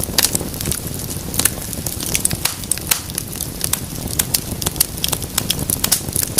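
Wood fire crackling: irregular sharp pops and snaps, several a second, over a steady low rushing of flame.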